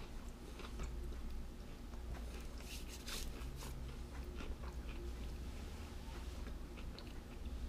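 A person chewing a crunchy baked Mac n' Cheetos snack close to the microphone: small crunches scattered throughout, most dense about three seconds in.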